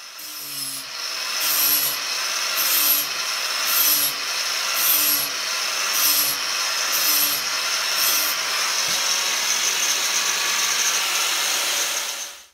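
A corded handheld power tool abrading a fibreglass boat-cabin ceiling, stripping the old lining down to bare fibreglass. The noisy grinding swells and fades about every 0.7 s as the tool is worked back and forth, and it cuts off suddenly near the end.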